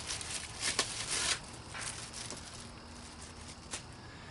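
Rustling and a few light clicks as packaging and parts are handled, busiest in the first second and a half, with one more click near the end.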